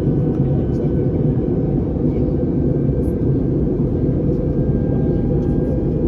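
Steady cabin noise of an Airbus A321neo in flight: its CFM LEAP-1A engines and the airflow make a deep, even rumble, with a few faint, steady whining tones above it.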